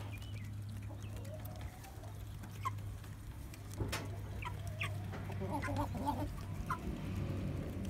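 A flock of chickens clucking softly while they eat, with scattered short calls and a small burst of clucks about six seconds in, over a low steady hum.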